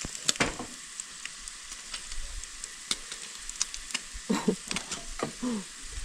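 Eggs frying in a non-stick pan on a camp stove burner: a steady sizzle with many small sharp crackles of spitting fat. A few brief pitched sounds come in about four to five seconds in.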